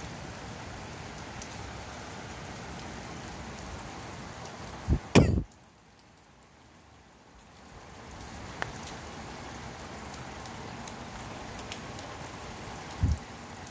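Steady rain falling on the street and nearby surfaces. About five seconds in come two loud thumps in quick succession, after which the rain noise cuts out suddenly for about two seconds before it gradually returns; a smaller, deeper thump comes near the end.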